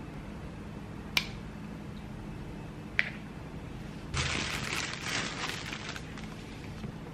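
Two sharp taps, about a second apart and a second in, as avocado halves are set down on a wooden cutting board. Then about two seconds of rustling and scraping from handling food and a knife on the board, over a low steady room hum.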